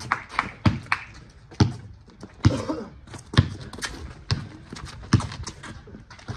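Basketball dribbled on a concrete driveway, a sharp bounce about every second, with fainter taps between the bounces.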